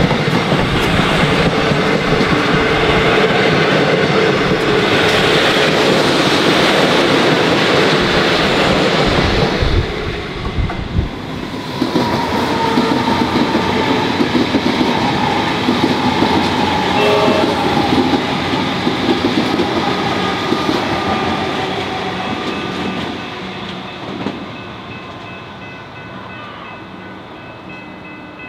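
Passenger carriages of a steam-hauled train rushing past at speed, wheels clattering over the rail joints. About ten seconds in, this gives way to an electric suburban train passing, its motors whining in a slowly falling pitch as it draws away and fades.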